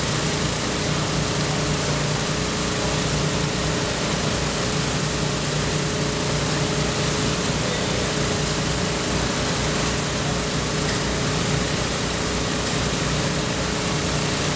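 Engine machinery running steadily: an even drone with a constant hum.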